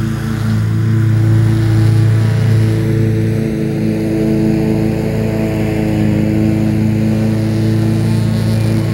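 Engine of a Bobcat commercial lawn mower running steadily at working speed, close to the microphone.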